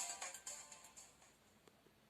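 The last note of an Alcatel OT-808 mobile phone's electronic ringtone melody dies away over about a second and a half, followed by a couple of faint clicks near the end.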